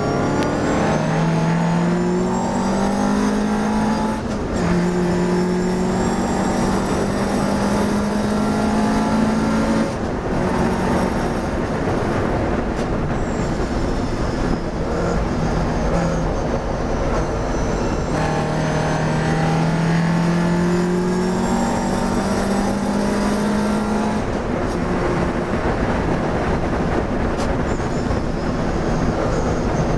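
Classic sports racing car's engine heard from inside the cockpit, pulling hard with its pitch climbing, broken by quick upshifts about four and ten seconds in. It then runs at high speed, and the engine note changes about three-quarters of the way through as the driver eases off. Wind and road noise run underneath.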